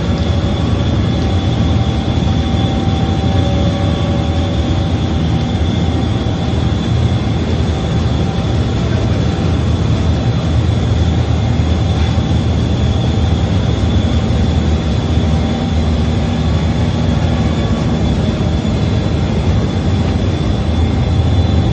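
Rotary screen printing machine running: a loud, steady mechanical drone with a heavy low rumble and a constant high-pitched whine over it.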